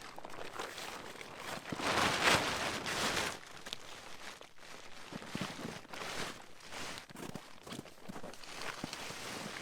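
Crunching and rustling of snow and camping gear being handled and moved, with a louder, longer scraping rush about two seconds in.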